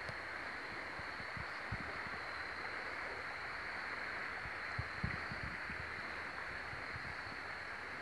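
Steady rush of creek water running over a shallow riffle, with a thin steady high tone above it and a few soft low bumps on the microphone about two seconds in and again past the middle.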